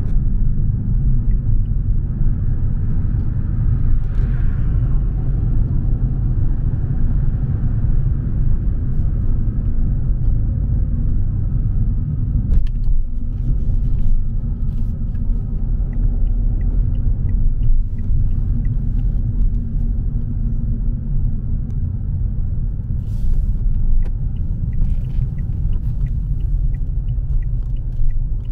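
A car driving, heard as a steady low rumble of engine and tyres on the road.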